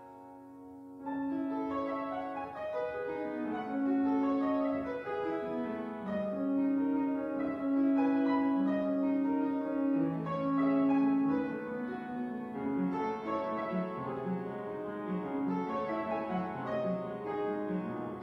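Upright piano playing a melody over held chords; a held chord dies away before the playing picks up again about a second in.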